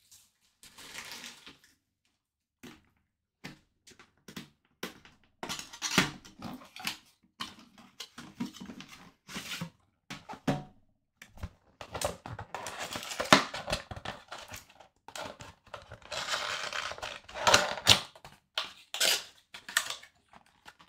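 Handling noise as a cardboard trading-card box is opened and a metal card tin is taken out and set down: rustling and scraping with many scattered clicks and knocks.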